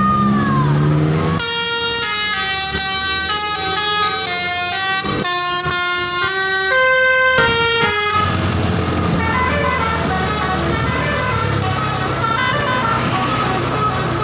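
Bus's roof-mounted telolet basuri musical horn playing a stepping melody of clear, sustained notes. About eight seconds in it gives way to the bus's engine running, with the tune continuing more faintly.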